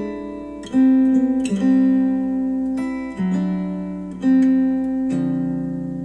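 Plucked guitar music, slow single notes and chords each left to ring, played back through KEF R3 bookshelf speakers driven by a NAD C 338 amplifier.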